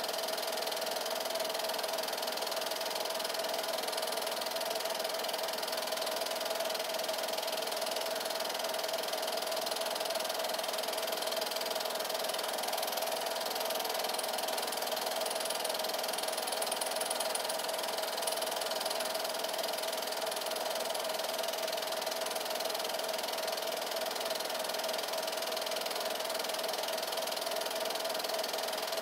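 8mm film projector running: a steady mechanical whir with one constant tone through it.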